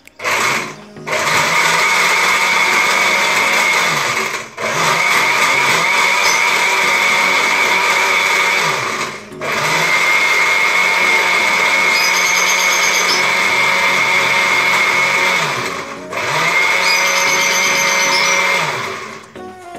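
Electric countertop blender grinding coconut chunks with water into coconut milk. The motor runs with a steady high whine and is stopped and restarted four times, in spells of about four to six seconds.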